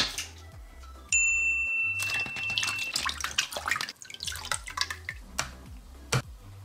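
A small toy pack splashes into a plastic bowl of water, then the water sloshes and drips as a hand swishes the pack around to dissolve its water-soluble wrapper. Background music with a steady beat runs under it, and a high ringing tone sounds about a second in.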